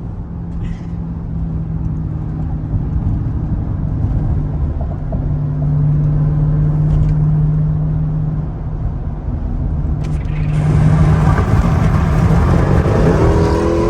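Supercharged V8 of a Jeep Grand Cherokee Trackhawk driving hard, heard from inside the cabin: a steady low engine drone that grows louder. About ten seconds in, a loud rush of wind and road noise joins it.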